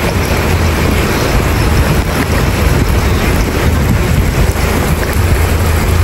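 Steady heavy rain and wind rumbling on the microphone, mixed with a car engine and the rush of water as a white BMW X5 drives through floodwater on a flooded road.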